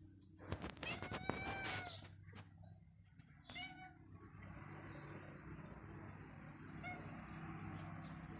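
A young cat meowing: one long meow about a second in, a short one near four seconds and a faint one near seven seconds. A steady hiss runs under the second half.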